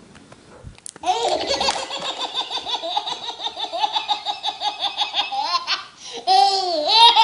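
High-pitched human laughter: a long run of rapid pulses, then a few rising-and-falling squeals near the end.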